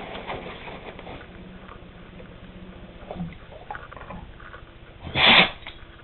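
A dog sniffing softly a few times, then one loud, short sneeze just after five seconds in.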